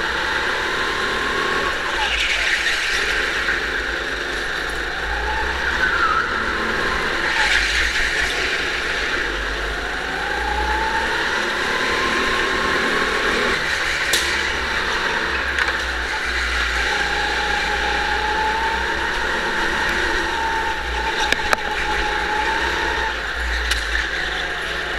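Go-kart running at speed around an indoor track, its drive note rising and falling again and again through the corners, heard from on board through a waterproof camera case.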